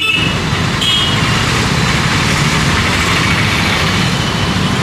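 Busy city street traffic: a steady, loud wash of passing vehicle engines and road noise, with a short high tone about a second in.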